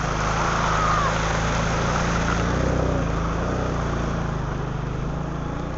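Arctic Cat 300 four-wheeler's engine running steadily as the quad is ridden along.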